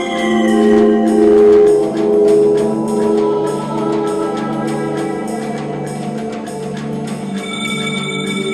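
Instrumental music with sustained, organ-like held chords over a low bass line; the upper notes slide downward in pitch during the first second.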